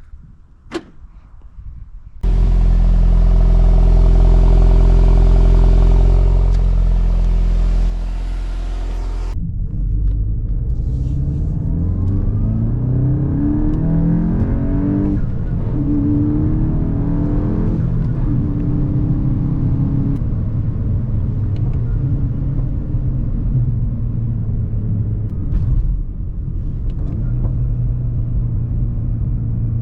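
Volkswagen Mk8 Golf GTI's turbocharged 2.0-litre four-cylinder starting about two seconds in with a loud, steady high idle, preceded by two sharp clicks. After a sudden change about nine seconds in, the engine runs under way with its pitch rising and falling as the car accelerates.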